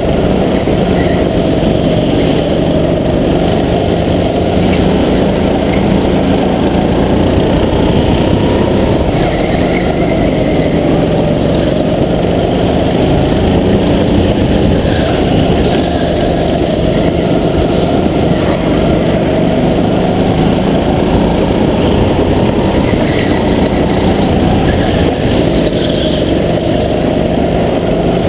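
Small go-kart engine running hard, its revs rising and falling gently as the kart goes through the corners, heard close up from a helmet-mounted camera.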